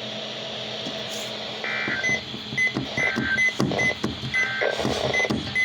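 Emergency Alert System digital data bursts: three short buzzy bursts about 1.3 s apart, mixed with a run of short high beeps. The short bursts straight after the spoken message fit the EAS end-of-message code.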